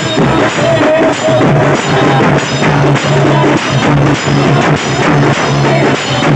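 A live procession band plays loudly for dancing, led by a large bass drum with cymbals. It keeps a driving beat of about two strokes a second, and a short melody sounds over it in the first few seconds.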